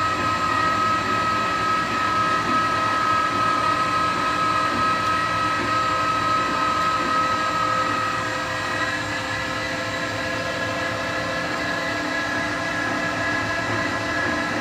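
Chinese-made CNC lathe running its program, the spindle and feed drives giving a steady whine of several tones over a low hum. The tool is making its first roughing passes in air above undersized stock, so there is no cutting sound. About eight seconds in, the strongest tone fades and the whine shifts higher.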